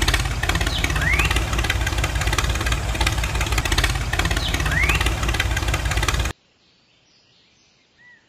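Tractor engine sound effect running with a fast, even beat, then cutting off suddenly about six seconds in.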